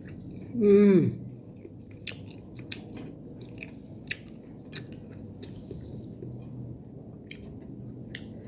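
Someone chewing food close to the microphone, with scattered wet smacks and clicks. Under a second in there is one loud vocal exclamation, falling in pitch, like an appreciative 'wow'.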